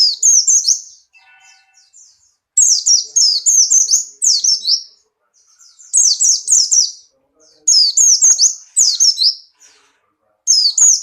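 White-eye (pleci buxtoni) singing: loud, fast runs of high chirps, each note sliding down in pitch, given in about five short phrases with brief pauses between them.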